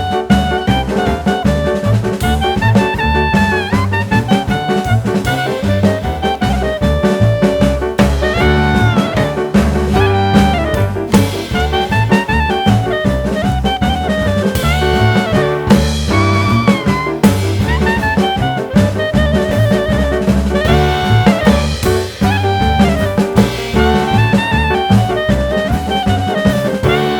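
Background music: an upbeat jazz-style tune with a saxophone-like lead melody over a steady drum and bass beat.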